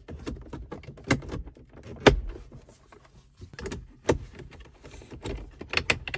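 Irregular sharp plastic clicks and knocks from car dashboard trim being pressed and snapped back into place around a newly fitted head unit, the loudest about two seconds in.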